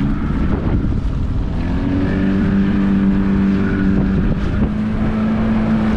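Inflatable dinghy's outboard motor running under way, a steady hum over a low rumble of water and wind on the microphone. The hum comes in about one and a half seconds in and steps slightly higher in pitch a little before the end.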